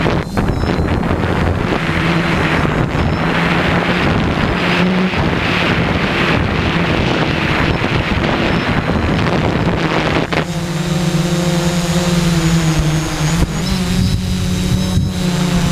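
Small multirotor drone's motors and propellers humming steadily, with wind buffeting the microphone. About ten seconds in the wind noise drops away and the motor hum stands out more clearly.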